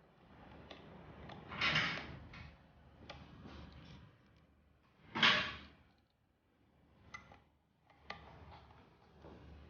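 Handling noises from wiring work: two short rustling swishes, the second louder, then a few sharp small clicks.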